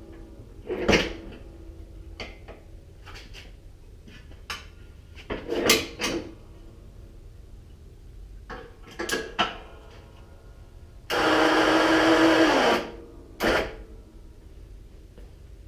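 Metal clanks from pulling the pins of an ATV's front-mount snow plow mount. Near the end an electric ATV winch motor runs for under two seconds, its pitch dropping as it stops, and one more clank follows.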